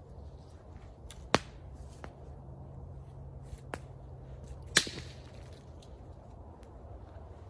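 Burning wood in a campfire giving off a few sharp cracks: two loud ones, about a second in and near the middle, with fainter clicks between.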